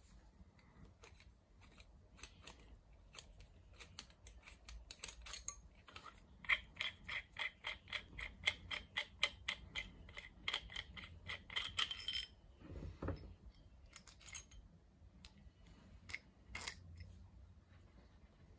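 Steel parts of a milling-head adapter handled by hand: light metallic clicks and clinks as a threaded steel rod is worked through the steel shank, with a fast run of ringing metal clicks, several a second, in the middle and a dull thump shortly after.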